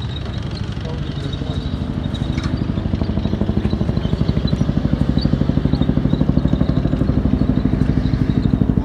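A vehicle engine running with a fast, even pulsing beat, growing steadily louder as it approaches.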